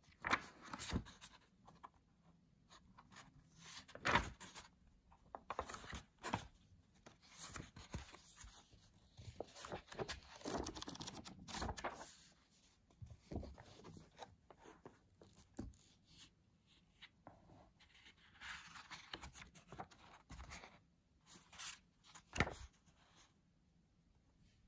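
Paper pages of a book being turned and flipped, rustling in irregular bursts, with a few sharper flaps about four seconds in and near the end.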